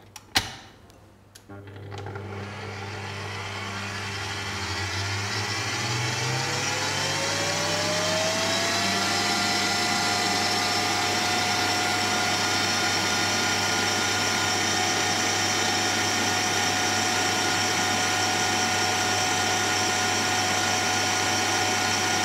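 A click, then a stand mixer's motor starts and its whine rises in pitch over several seconds as it speeds up. It then runs steadily at high speed, its balloon whisk beating Swiss meringue buttercream.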